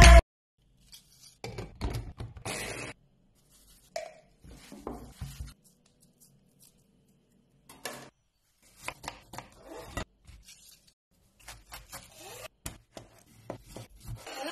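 Scattered small food-handling noises: clicks, scrapes and rustles of utensils and food, with near-silent gaps between them. Near the end a knife slices through tomatoes on a cutting board in a quick run of small clicks.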